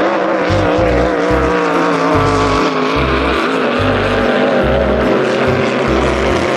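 A speedboat's engine running steadily at a slightly wavering pitch, over background music with a steady low beat.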